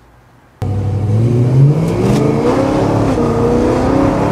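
Car engine accelerating, cutting in abruptly after a brief quiet moment; its pitch rises over the first second or so, then holds with slight rises and falls.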